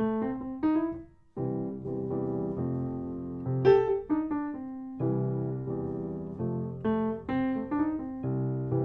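Background piano music: slow held chords with single notes moving above them.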